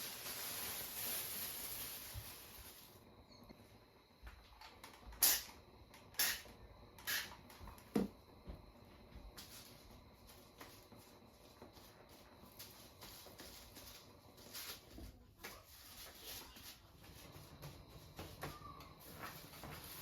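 A steady hiss for about three seconds, then four sharp knocks about a second apart, followed by softer scattered clicks and taps of objects being handled.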